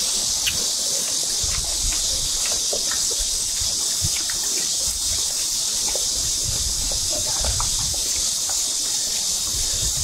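A dense chorus of cicadas singing steadily in one unbroken high-pitched drone, with light clicks of spoons on steel bowls scattered through it.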